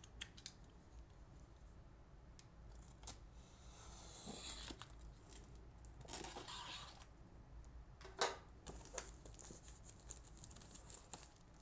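Plastic shrink wrap being cut and torn open on a cardboard board-game box: faint scattered clicks and crackles, with two longer rips about four and six seconds in.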